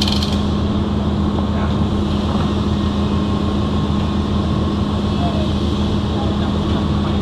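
Steady low machine hum of welding-shop equipment, with faint voices. A welding arc's crackle cuts off just after the start.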